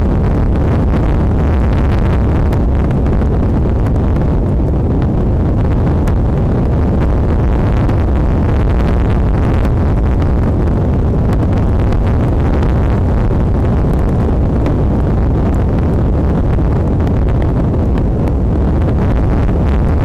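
Strong wind buffeting the nest camera's outdoor microphone: a loud, steady low rumble of wind noise.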